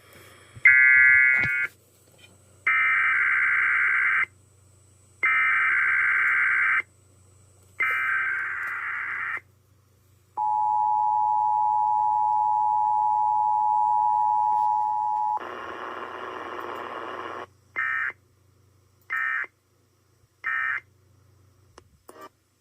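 Emergency Alert System test signal: four buzzy digital SAME header data bursts, about one every two and a half seconds, then the two-tone attention signal held steady for about five seconds. After a short burst of noise come three short end-of-message data bursts.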